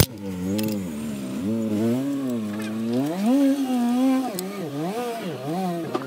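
A cat yowling: one long, drawn-out call whose pitch wavers slowly up and down, rising highest a little past halfway.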